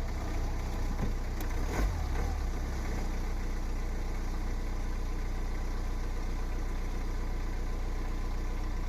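BMW N47 four-cylinder diesel idling steadily, with the timing chain rattle of a failed timing chain tensioner. There is one brief knock about two seconds in.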